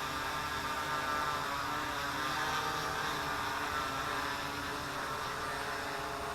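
Quadcopter's electric motors and propellers whining in flight, the pitch rising and falling slightly as the throttle changes about halfway through.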